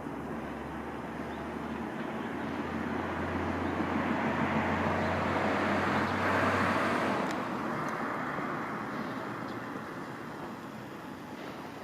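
A road vehicle passing by: its noise swells to a peak about six seconds in, then fades away.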